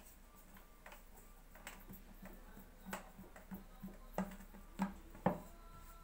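Hands shaping dough on a wooden tabletop: soft, irregular taps and knocks, with three sharper knocks about four to five seconds in as a wooden rolling pin is handled.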